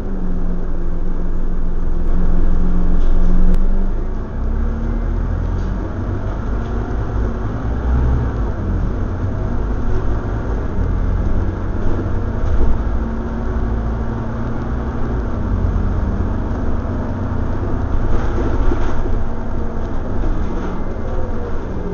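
Scania OmniCity bus heard from inside the passenger saloon: the diesel engine and drivetrain rumble with a steady whine that shifts pitch a few times as the bus changes gear. The noise builds to its loudest about three seconds in, drops suddenly just after four seconds, then runs on steadily.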